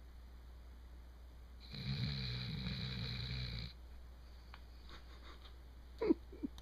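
A sleeping chocolate Labrador retriever snoring: one long snore of about two seconds starting a couple of seconds in. Near the end come two or three short, sharp sounds that drop in pitch.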